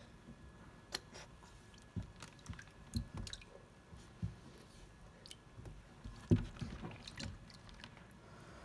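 Irregular wet splashes and knocks as a crocodile monitor moves about in shallow water in a plastic tub, its body and feet bumping the plastic; the loudest thump comes about six seconds in.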